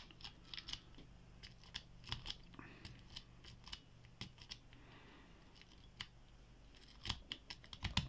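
Faint metallic clicking and scratching of a rake pick worked in and out of a Stahlex bike lock's pin-tumbler keyway under tension, in irregular flurries that grow denser near the end.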